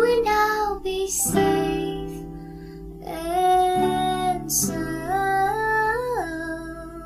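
Song with a female voice singing long, sliding notes over acoustic guitar.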